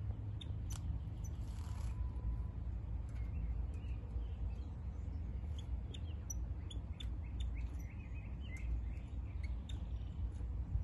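Caged European goldfinch twittering: many short, high chirps in scattered runs, over a steady low rumble. The song is the sign of a male coming into breeding condition.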